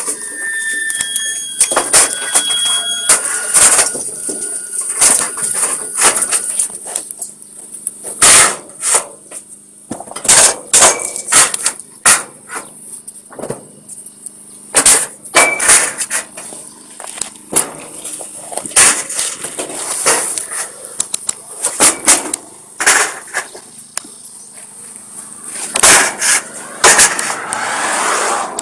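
Gaifeng GF-3.5 paver laying machine creeping forward on its steel crawler tracks over sand, with irregular sharp metal clanks and knocks. A brief high squeal sounds in the first few seconds.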